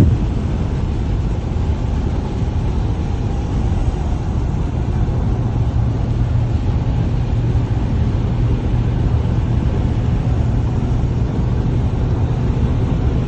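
Car driving along a road: a steady low engine and tyre rumble.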